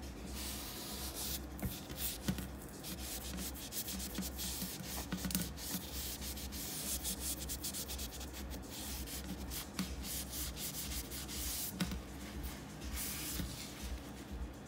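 Cloth rag in a gloved hand rubbed quickly back and forth over tile, a continuous scrubbing hiss of uneven strokes, wiping china marker (grease pencil) off the tile.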